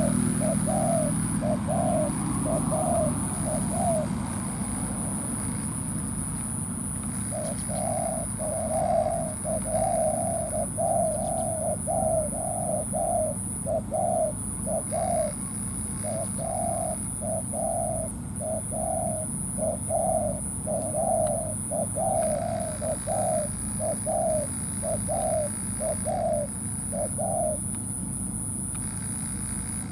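Spotted dove cooing in a quick series of short coos, about two a second. It pauses for a few seconds about 4 s in, resumes, and stops a couple of seconds before the end.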